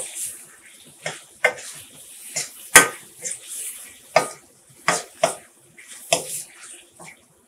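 A metal spoon scraping and knocking against a metal karahi as tomatoes are stirred into a frying masala: about a dozen irregular strokes, the loudest a little under three seconds in, over a faint sizzle.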